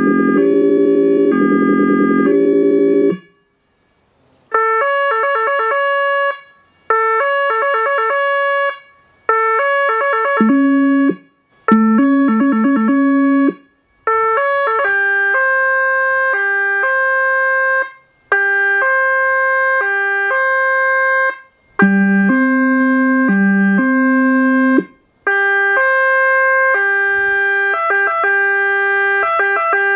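A Whelen Carbide electronic siren plays a series of European two-tone siren patterns. Each lasts a few seconds, and short silences fall between them. Some alternate quickly and others step slowly between a high and a low note, such as the Austrian police tone and the Italian ambulance tone. At the start, and twice more, the Howler low-frequency speaker adds a deep tone under the siren.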